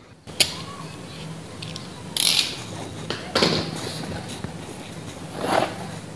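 Cardboard fan box being pulled open by hand: the lid and packing scrape and rustle in several sudden loud bursts, over a faint steady low hum.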